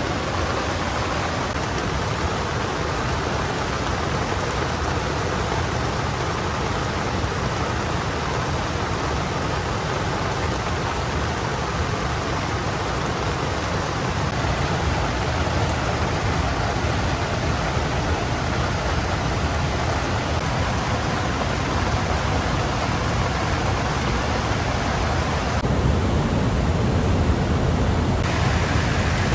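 Heavy rain falling steadily, a dense even hiss. A couple of seconds before the end it turns lower and duller for a moment.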